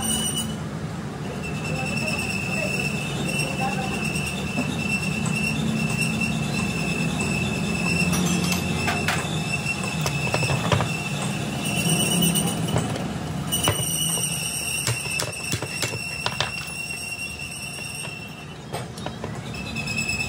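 A few sharp metal clinks as a truck drive shaft's universal joint and yoke are handled and set down, over a steady high-pitched whine that stops and restarts several times and a low rumble.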